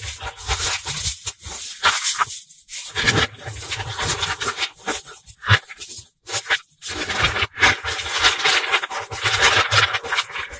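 Dense clicking, rattling and scraping of hundreds of tiny Nanodots neodymium magnetic balls being squeezed and worked by hand, with brief pauses about two and a half and six seconds in.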